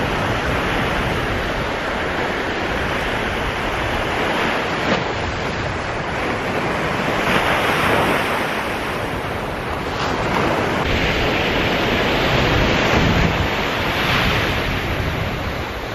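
Surf breaking and washing up the beach, with wind buffeting the microphone in a steady rushing noise.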